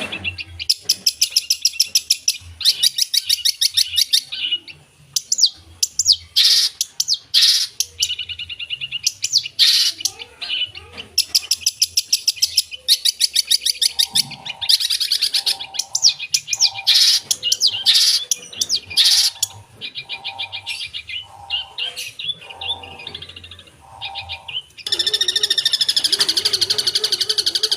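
Long-tailed shrike (cendet) singing a rapid, varied song of trills and chirps, packed with imitations of other birds' calls. Near the end it switches to a continuous fast, buzzy rattle.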